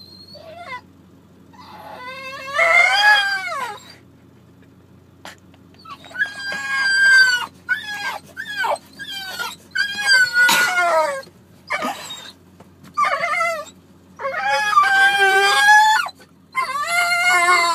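A dog howling and whining in a series of long, wavering cries with shorter yelps between them: separation distress at being left without its owner.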